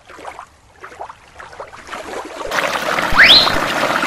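Quiet for the first half, then from about two and a half seconds in, a small creek runs loudly over rocks. A short rising squeak sounds about three seconds in.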